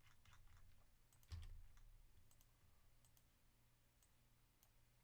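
Faint computer mouse clicks, a scattered dozen or so at uneven intervals, one a little louder about a second in.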